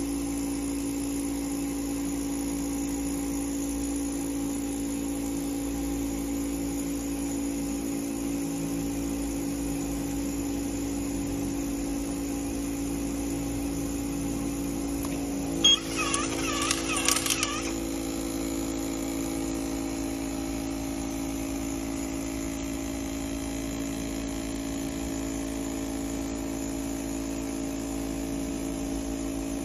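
Steady electrical machine hum from the robotic screwdriving cell. About halfway through comes a sharp click, then about two seconds of whirring in quick, wavering surges, as the collaborative robot's electric screwdriver works at the automatic screw feeder.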